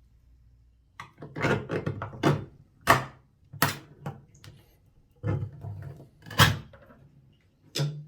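A 3D-printed plastic opener knocking and clicking against a container as it is worked, with about seven sharp, irregular knocks and clicks starting about a second in.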